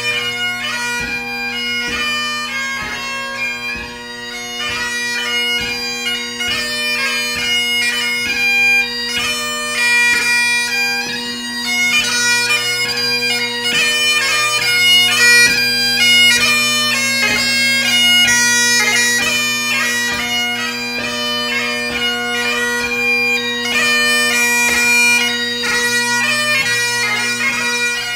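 Great Highland bagpipe played solo, a ceol beag (light music) tune: the drones hold one steady chord under a quick chanter melody with rapid note changes and ornaments.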